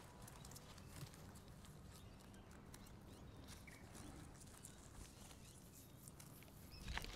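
Near silence with faint, scattered small clicks and ticks from guinea pigs feeding, over a low background hum, with a slightly louder brief rustle near the end.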